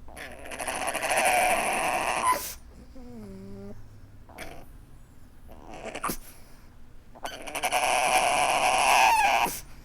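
Pug whining and crying: two long, raspy, wavering wails of about two seconds each, one at the start and one near the end, with a short whimper about three seconds in.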